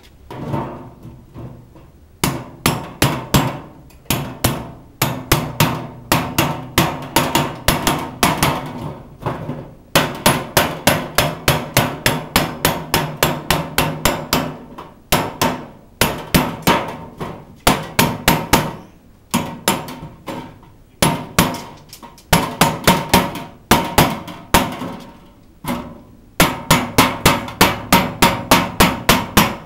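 Repeated hammer blows on a metal car part, about four strikes a second in long runs with short pauses between them, each blow ringing.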